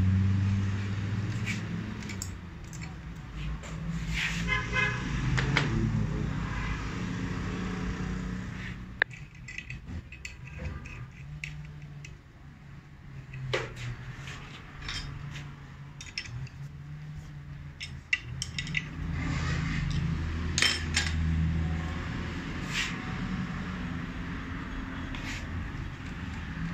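A steady low hum, with scattered sharp clicks and clinks of small steel parts being handled at a metal workbench.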